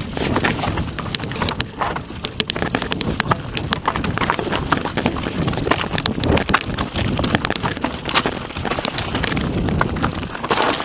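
YT Industries Capra AL Comp aluminium enduro mountain bike descending a rocky trail fast: a constant irregular rattle and clatter of the tyres and frame over loose stones, with wind noise on the microphone.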